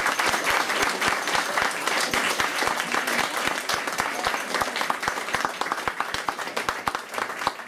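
A small audience applauding, many hands clapping at once; the applause slowly dies down, thinning to scattered single claps near the end.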